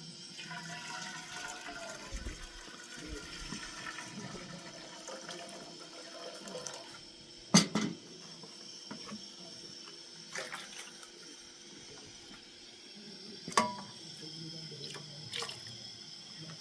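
Water running or being poured, as when washing ingredients, with a few sharp knocks, the loudest about halfway through.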